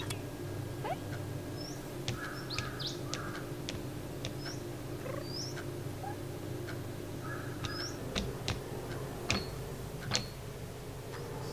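Made-up sound effects for a tiny robot creature: a series of short, high, chirpy squeaks, with a few light clicks and taps as it moves about, over a steady low hum.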